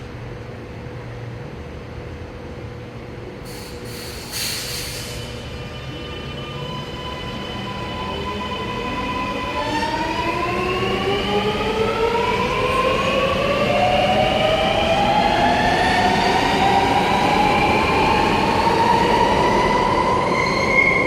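Alstom Metropolis metro train pulling out and accelerating, its electric traction drive giving several whines that rise steadily in pitch and grow louder. There is a short burst of noise about four seconds in, before it moves off.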